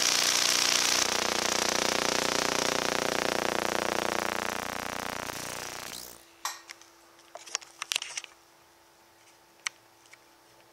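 Discharge from the wire tips of an ion motor driven by an 833C vacuum tube Tesla coil in CW mode: a steady hiss with a buzzing hum under it, which fades and stops about six seconds in. A few faint clicks follow.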